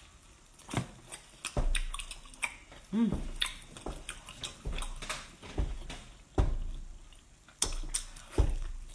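Close-miked eating sounds: wet chewing, sucking and smacking on seafood, broken by sharp clicks and taps, with a short rising-and-falling tone about three seconds in.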